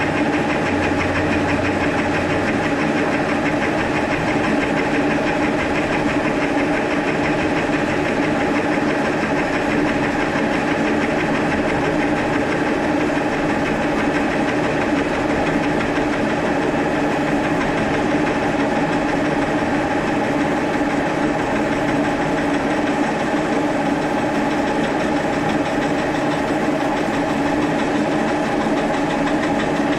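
Milling spindle running steadily with an end mill taking light cuts along a metal follow-rest part: an even machine hum with several steady tones and the noise of cutting.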